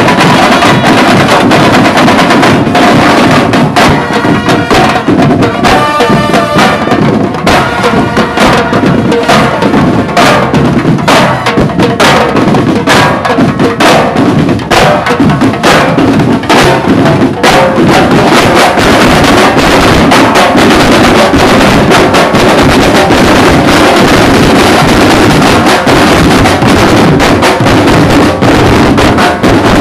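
Nicaraguan banda rítmica playing loudly: snare and bass drums drive a steady march beat while bell lyres ring out a melody. The melody stands out in the first third, and the drumming grows denser from about 18 seconds on.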